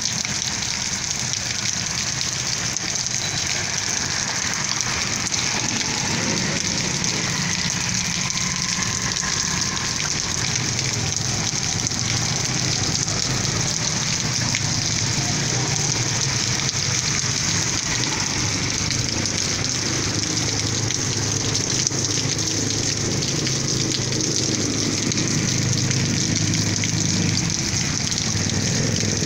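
Heavy rain falling steadily on a flooded street and pavement, an even hiss. A low rumble grows in the second half.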